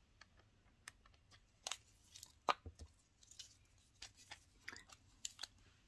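Faint, scattered crinkles and clicks from a roll of nail transfer foil and its plastic packaging being handled and rolled up by hand.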